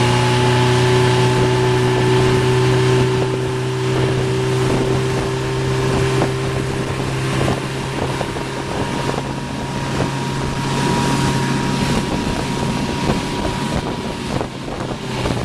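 Motorboat engine running steadily at speed, over the rush of its churning wake, with wind buffeting the microphone.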